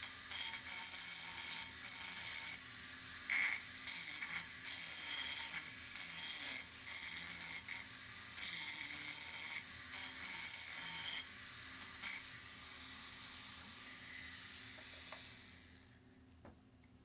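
Rotary tool with a fine-grit diamond burr grinding the edge of a hole drilled in a glass bottle, in short on-off passes as the burr touches the glass and lifts away. After about twelve seconds the tool runs without grinding, then winds down and stops.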